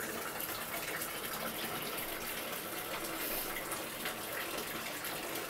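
A steady rushing hiss, like running water, with a few faint clicks.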